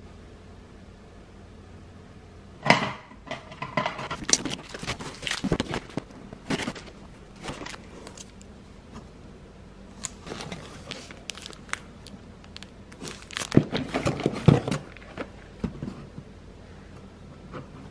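A cardboard grocery delivery box being unpacked by hand: plastic and foil food packages crinkling and rustling in irregular bursts, with handling knocks. It starts a few seconds in and picks up again past the middle.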